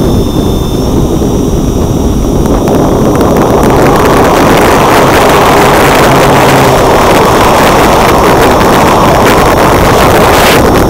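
Heavy wind rushing over the microphone of a wing-mounted action camera on an E-flite Turbo Timber electric RC plane in flight, with the battery-powered motor and propeller's faint steady whine underneath. The rush grows louder a few seconds in.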